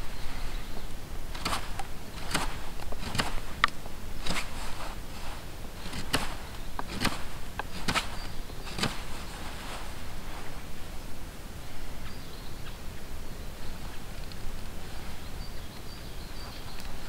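Knife blade shaving a wooden stick: a series of sharp scraping strokes about once a second for the first nine seconds or so, then quieter, slower carving cuts.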